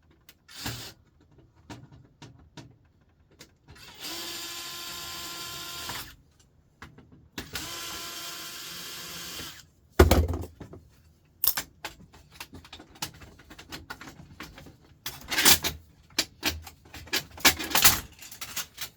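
A handheld power drill spins steadily twice for about two seconds each, backing screws out of a laser printer's casing. This is followed by a run of sharp knocks and clatter from metal and plastic parts being handled.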